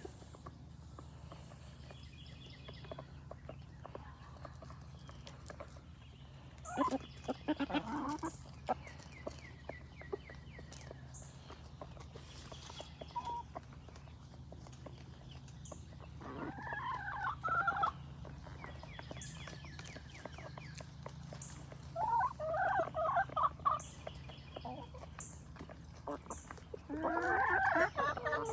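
Chickens calling in four short bursts while feeding, the last and loudest near the end, with sharp taps of beaks pecking biscuit crumbs off a plastic cutting board.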